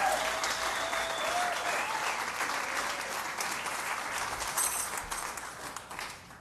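Theater audience applauding, with a few shouts in the first second, dying away near the end.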